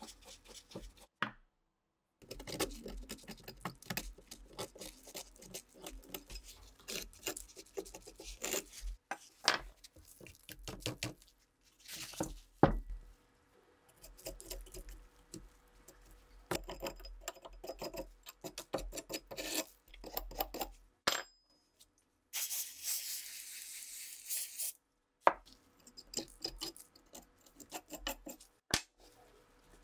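Metal hand tools scraping and picking at rust and caked grime on an old rifle: a flat tool grinding in a rusted screw head, and a pointed pick scraping dirt from the wooden stock and metal parts. Many short scrapes and clicks in separate bursts, with a steadier hiss for about two seconds about three-quarters of the way through.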